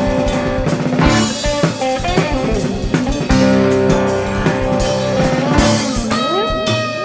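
Rock band playing live in an instrumental jam, with electric guitars, bass, keyboard and drums. About six seconds in, the drum hits drop away and one long note is held while lower notes slide upward.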